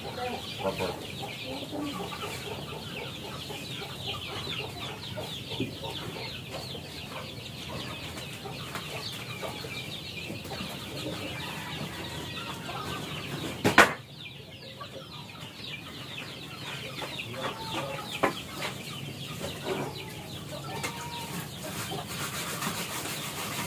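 Chickens clucking and chirping throughout, with one sharp knock a little past halfway, as of wood struck or dropped on the floor.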